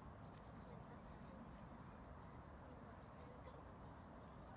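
Near silence: faint wind noise on the microphone, with a few faint, short, high bird chirps.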